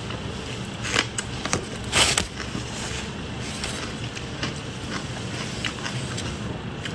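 Close-miked eating sounds of a person biting and chewing food, with a few sharp mouth clicks about one and two seconds in over a steady low hum.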